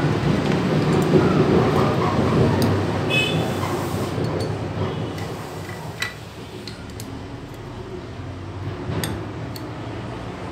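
Steady background road-traffic noise, louder in the first half and easing off after about five seconds, with a few sharp clicks and a brief high tone about three seconds in.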